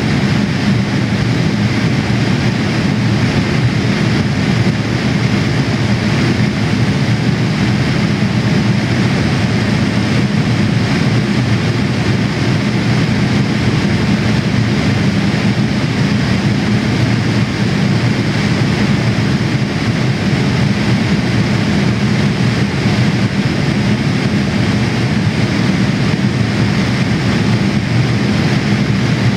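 Steady cabin noise inside a Boeing 787-8 airliner in flight: a constant deep rush of engine and airflow noise that does not change.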